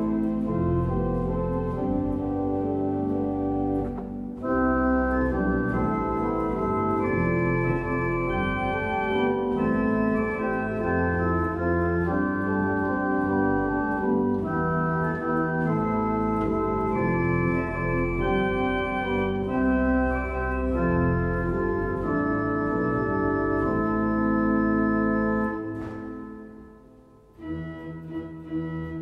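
Klais pipe organ (four manuals, 57 stops) playing a slow tune in full sustained chords under a melody line, with a brief break about four seconds in. Near the end the chord dies away into the church's reverberation, and softer playing begins.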